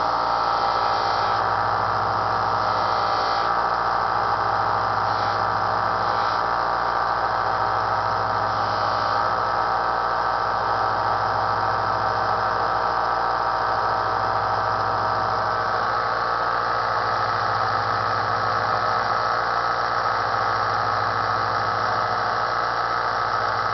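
Small bench belt sander's electric motor running steadily with a pulsing hum. A steel blade is pressed against the moving belt several times in the first ten seconds, adding short hissy grinding strokes.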